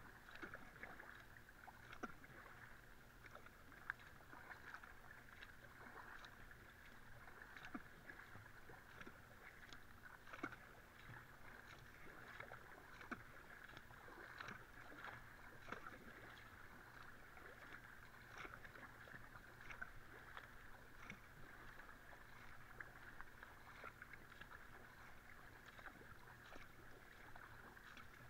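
Faint, steady paddle strokes of a flatwater racing kayak, the blades splashing in and out of the water in an even rhythm of about one stroke every three quarters of a second, over a soft constant rush of water along the hull.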